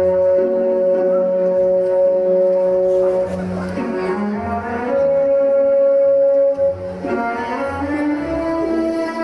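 Slow orchestral ballet music with long held notes, the melody moving on to new notes about four and five seconds in.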